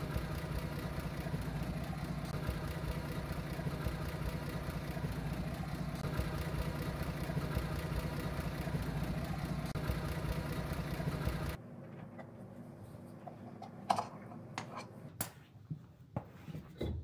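An engine idling steadily, with an even rapid pulse, cutting off abruptly about eleven and a half seconds in. After it, a quieter stretch with a few light knocks and clicks as a front wheel is handled.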